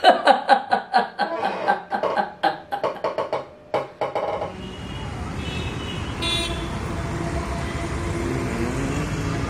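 A man laughing hard, a rapid run of 'ha' bursts, for about four seconds. Then it changes to busy street traffic, engines and tyres running steadily, with a car horn tooting briefly.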